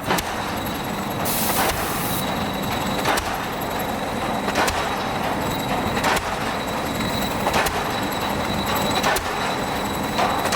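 Pile-driving hammer on an excavator-mounted pile driver striking a pile at a steady pace, about one blow every one and a half seconds, over the continuous running of the machinery. A short hiss sounds between the first and second blows.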